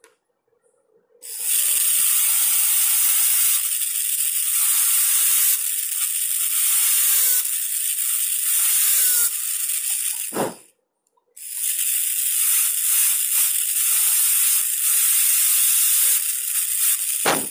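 High-speed dental handpiece running a cylindrical bur against a typodont tooth's proximal surface, giving a loud steady hiss-whine. It starts about a second in, stops briefly about ten seconds in, starts again a moment later, and cuts off just before the end.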